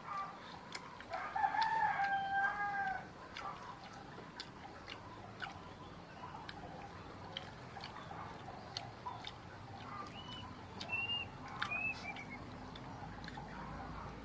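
A rooster crowing once, one long call of about two seconds starting about a second in.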